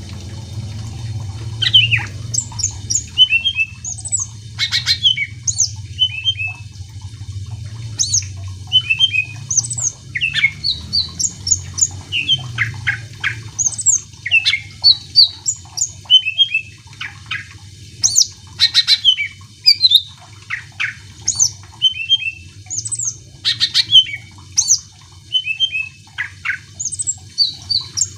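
Green leafbird (cucak ijo) singing in full, continuous song: a rapid, varied run of short whistled notes and quick sweeping chirps, with a low steady hum underneath.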